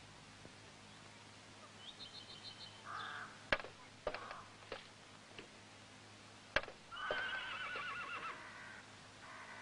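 A horse whinnies with a long, wavering call about seven seconds in, with a short quavering cry earlier. A few sharp knocks come before it, two of them loud.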